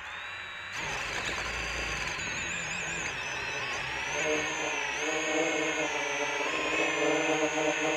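Brushless motors and 10-inch propellers of an FPV quadcopter spinning up: a steady high whine starts about a second in, then the sound grows louder with a stronger, lower propeller hum as the throttle rises for takeoff about four seconds in.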